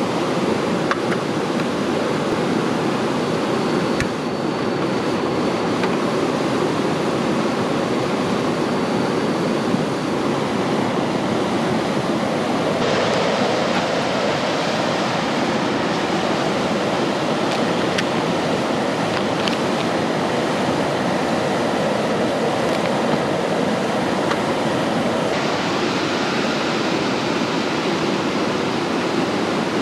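Steady rushing water noise, with a few faint ticks; its tone shifts abruptly about 13 and 25 seconds in.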